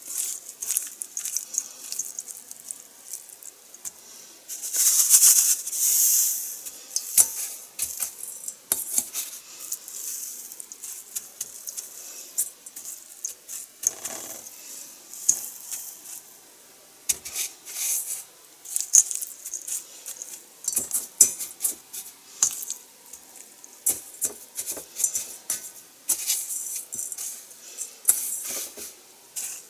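Hands pressing and tossing raw chicken breast pieces in panko breadcrumbs in a stainless steel bowl make a dry, gritty rustling and crackling with many small clicks. It is loudest about five to six seconds in.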